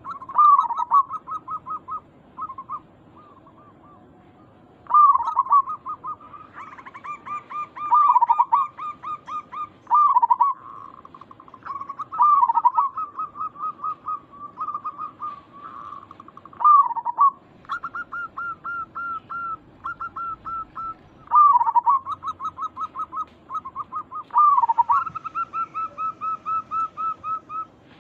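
Zebra doves (perkutut) cooing: rapid runs of short staccato notes broken every few seconds by a louder, downward-swooping coo. At times a second, higher-pitched bird calls over the first.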